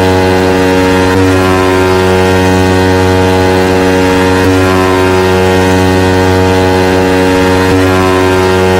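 Loud, sustained buzzing synthesizer drone over a heavy deep bass, the kind of bass-test track made for car sound-system competitions; the tone shifts slightly about every three seconds.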